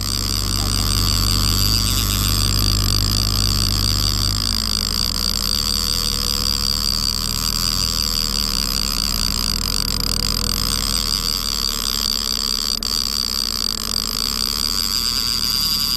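Boat engine running steadily at trolling speed. Its deepest tones drop away about four and a half seconds in, and it runs on lighter after that.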